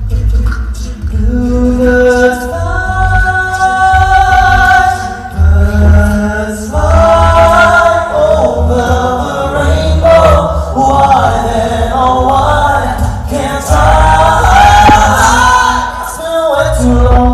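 Male a cappella group singing close harmony through handheld microphones: several held, layered vocal lines over a strong, pulsing low bass part, with no instruments.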